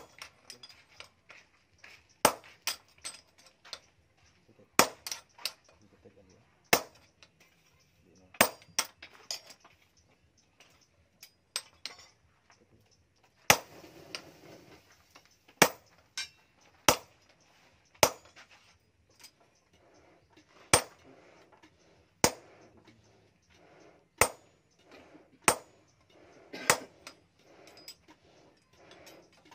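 A hand hammer strikes a steel punch held in tongs, stamping decorative marks into a steel axe head on an anvil. Sharp metallic clinks come one at a time, roughly one every second or two at an uneven pace.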